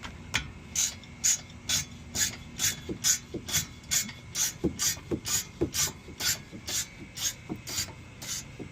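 Hand ratchet clicking steadily about twice a second as it is swung back and forth, loosening a rear brake caliper bolt so the slide pin can come out.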